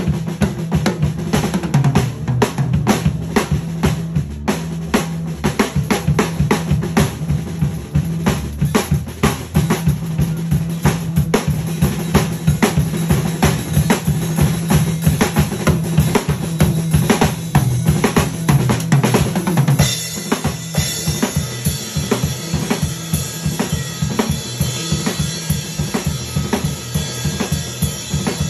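Live drum kit solo: fast, dense hits on snare, toms and bass drum, played by two drummers on one kit. From about two-thirds of the way through, the cymbals ring continuously over the drumming.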